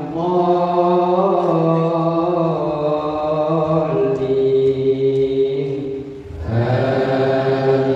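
A male imam chanting Quran recitation through a microphone, holding long, drawn-out melodic notes; the voice breaks off briefly about six seconds in, then resumes on a new held note.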